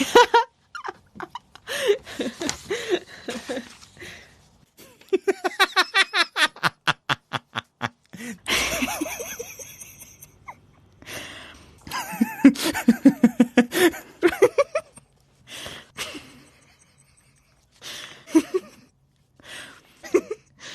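A series of human laughs and giggles, one after another with short pauses between them. About five seconds in comes a run of quick, evenly spaced ha-ha pulses that fades out; around nine seconds a breathy burst; and from about twelve to fourteen seconds a deeper-pitched laugh.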